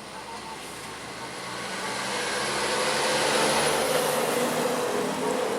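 A motor vehicle's engine and road noise swelling as it comes close over about two seconds, then staying loud.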